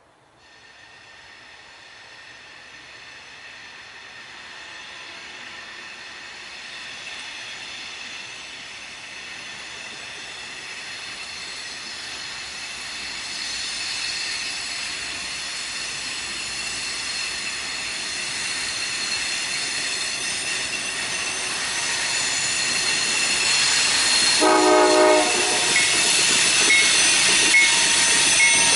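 An approaching train growing steadily louder, with a high, steady ringing that builds as it nears. About 24 seconds in there is a short horn blast, and the train is loudest near the end.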